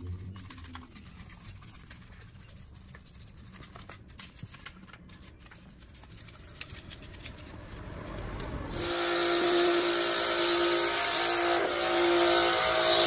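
A small brush scrubs a soapy alloy wheel with faint scratchy strokes. About nine seconds in, a pressure washer starts spraying, with a loud steady hiss over a steady hum.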